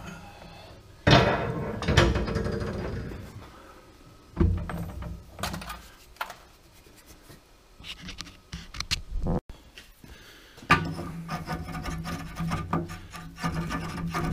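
Steel-on-steel handling: a couple of sharp metallic clanks with ringing about a second in as a bored steel sleeve is freed from a lathe's three-jaw chuck, a few lighter knocks, then from about ten seconds in steady scraping and rubbing as the sleeve is worked over the end of a feed auger shaft, with a low steady hum underneath.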